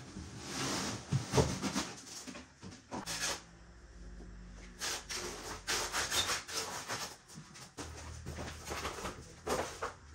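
Hands rubbing and scraping over the wet wooden formwork of a concrete countertop, in many short, irregular strokes.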